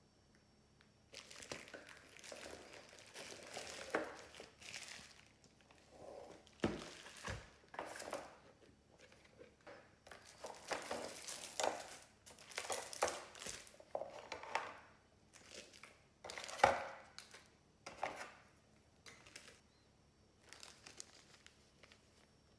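Bubble wrap and plastic packaging crinkling and rustling in irregular bursts as items are handled and lifted out of a cardboard box, with a few light knocks and one sharper knock about three-quarters of the way through.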